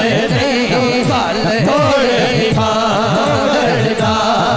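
A man's voice singing a Punjabi naat into a microphone over a quick, even rhythm of low beats that slide in pitch, about four a second.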